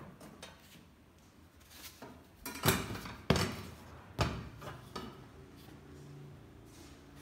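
Handling noise as a cardboard disc is set onto the rim of a clear plastic cylinder: a few sharp knocks and scrapes, the loudest three in the middle of the stretch.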